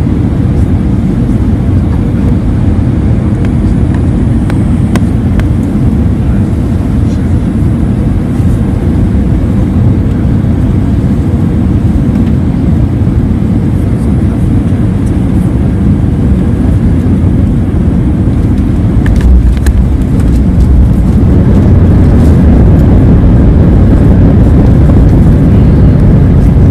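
Cabin noise of an Airbus A320 landing: a steady low rumble of engines and airflow heard through the cabin wall. About two-thirds of the way in there are a few short knocks as the wheels touch down, then the rumble grows louder as the jet rolls out on the runway with its spoilers up.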